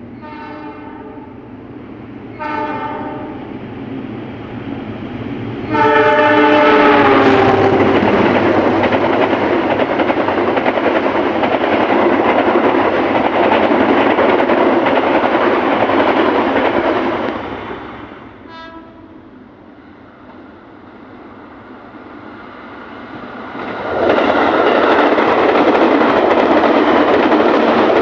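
Train horn sounding twice in short blasts, then a longer blast that drops in pitch at its end as the train passes close, followed by about ten seconds of loud rushing and rail noise from the passing train. A short horn toot comes just after it fades, and another train passes loudly in the last few seconds.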